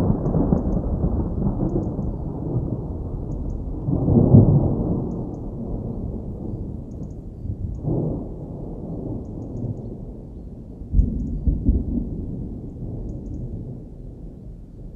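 Thunder from a nearby storm: a continuous low rumble with louder rolls swelling about four seconds in and again around eight seconds. A sudden thunderclap comes about eleven seconds in, then the rumble dies down.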